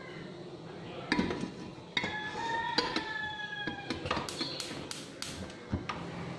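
Stainless steel pots knocked and set down on a stovetop, clanking three times with lingering metallic ringing tones, followed by a quick run of sharp clicks.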